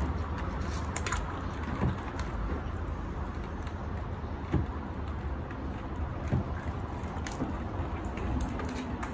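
A pet turtle moving about in a plastic tub of shallow water, making a few faint knocks and small splashes over a steady low background rumble.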